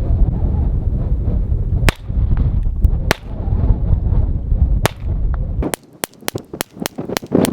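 Taurus TX 22 .22 rimfire semi-automatic pistol firing M22 ammunition: three single shots a second or more apart, then a fast string of about ten shots at roughly five a second near the end, all cycling without a stoppage. Wind rumbles on the microphone under the first shots.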